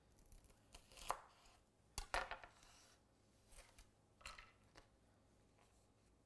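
Faint taps and knocks of a chef's knife cutting through the ends of a bunch of green beans onto a plastic cutting board, and of the beans being handled and pushed into line. A few separate sharp taps, the loudest about two seconds in.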